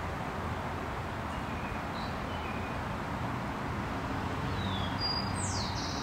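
Steady outdoor background rumble with a few faint, short bird chirps about two seconds in, and a brief, brighter bird call falling in pitch near the end.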